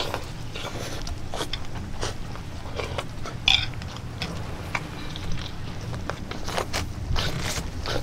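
Close-up eating sounds of a person biting and chewing pickled raw shrimp: irregular mouth clicks and smacks, with a sharper one about three and a half seconds in.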